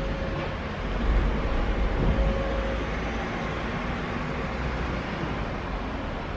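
Steady outdoor background rumble with a faint steady hum, swelling briefly about one and two seconds in.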